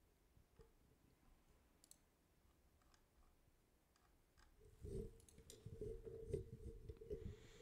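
Faint computer mouse clicks, sparse at first. From about five seconds in they turn into a quick run of louder clicks mixed with low thuds.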